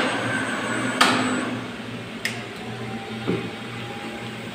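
Hinged sheet-metal front panel of a controller cabinet being handled and swung open: a sharp knock about a second in, then a lighter click and a duller knock, over a steady hum of machinery.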